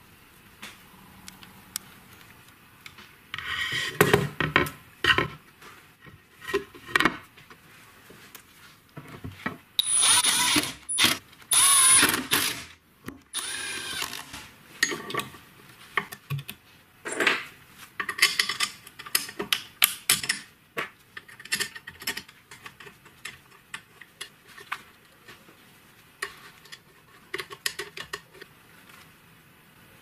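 Intermittent mechanical workshop noise: scattered clicks and clanks and short bursts of a tool at work, loudest for a couple of seconds about ten seconds in.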